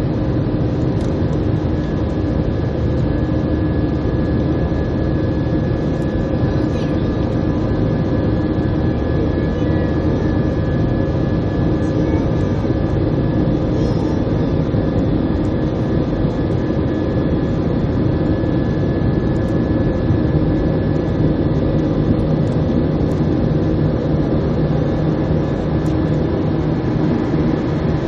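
Steady roar of a jet airliner's engines and airflow heard from inside the passenger cabin, with a few constant whining tones over the rumble.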